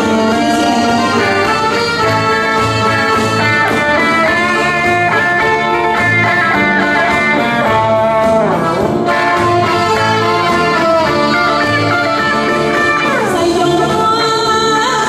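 A live small band playing amplified music: electric bass, electric guitar and keyboard under melody lines from reed instruments, with a woman singing into a microphone. Held notes with a few sliding pitch bends over a steady repeating bass line.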